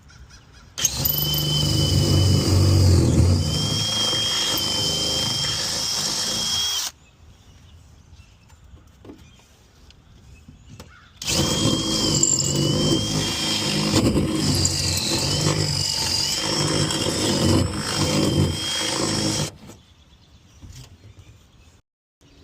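Power drill running under load in two long runs of about six and eight seconds, its motor whine dipping in pitch now and then as it bites.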